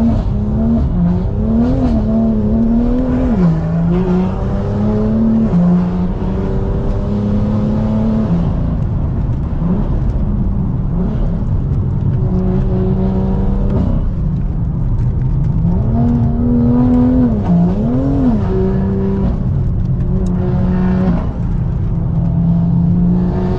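Stage 2+ tuned BMW M2's turbocharged straight-six driven hard. The revs climb and fall again and again, with sudden drops in pitch at gear changes and lifts off the throttle.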